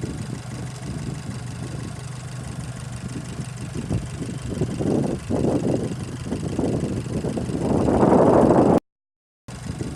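Fiat 500 Abarth Esseesse's 1.4 T-Jet turbocharged engine running steadily, then louder and uneven from about four seconds in, loudest shortly before the sound cuts out briefly near the end.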